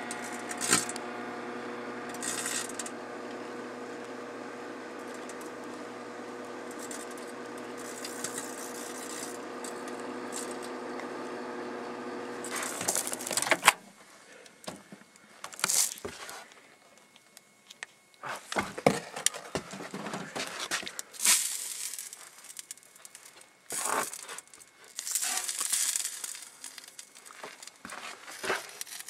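Microwave oven running with a steady electrical hum, with a few sharp crackles as a floppy disk burns inside. About halfway through the hum cuts off suddenly with a click, followed by scattered rustling, crinkling and knocks.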